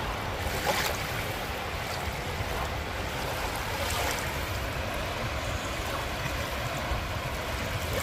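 Soft Black Sea waves washing up over a shell-and-pebble shore right at the water's edge, a steady rushing wash with small splashes, a little under a second in and again about halfway through.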